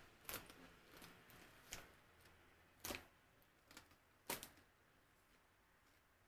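Close-up crunching of dried stink bugs being chewed: several sharp, irregular crunches, then dying away after about four and a half seconds.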